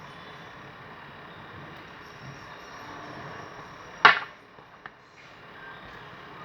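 Steady low background hiss, then one loud, sharp knock about four seconds in that rings briefly, as of a hard object struck against a tabletop.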